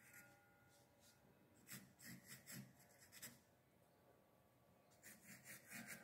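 Faint pencil strokes on textured cotton watercolour paper: a few short strokes about two to three seconds in, then another run of strokes near the end.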